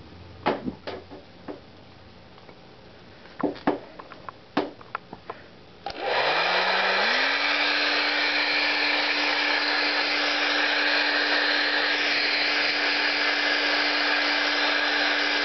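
A few scattered clicks and knocks, then about six seconds in a hair dryer is switched on: its motor whine rises in pitch for about a second as it spins up, then runs steadily under a loud rush of air.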